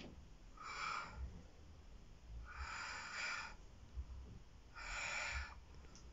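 A woman breathing slowly and deeply while she holds a deep splits stretch, three faint breaths about two seconds apart.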